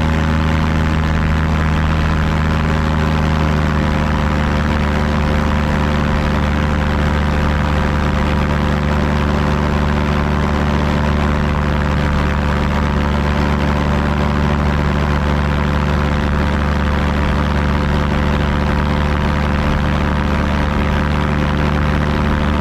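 An engine running steadily at constant speed, a loud, even drone with a slight drop in pitch about three seconds in.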